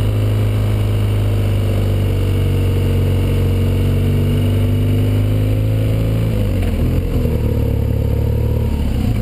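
A BMW R1200GS Adventure's air/oil-cooled boxer-twin engine running under way. The note breaks up briefly about two-thirds of the way through, then holds steady, and falls in pitch near the end as the bike slows.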